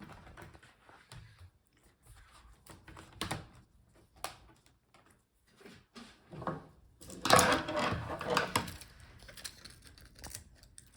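Hands working on an open laptop: scattered small clicks and taps, then a louder stretch of rustling and scraping about seven seconds in that lasts a couple of seconds.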